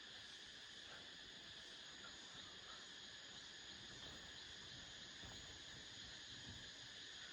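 Faint, steady chorus of insects, a continuous high-pitched shrill that does not let up.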